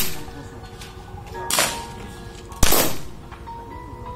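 Two pistol shots about a second apart, the second louder, each cracking sharply and fading quickly, over steady background music.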